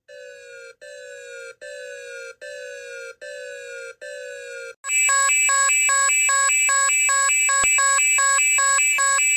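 Emergency alert system alarm tone. It starts with six short beeps, each gliding slightly down in pitch and getting louder. About five seconds in, a much louder, fast-alternating multi-tone alarm takes over.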